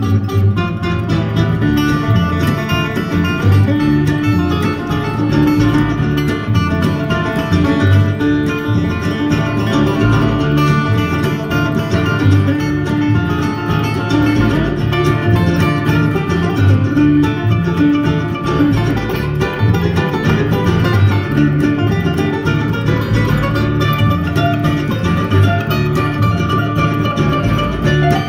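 A live bluegrass string band playing an instrumental passage, with picked acoustic guitar and banjo over a pulsing bass line.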